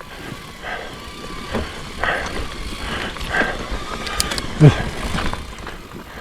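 Mountain bike riding over rough forest singletrack: tyres rolling over dirt and roots, with scattered knocks and rattles from the bike. A sharp, loud knock comes a little past halfway.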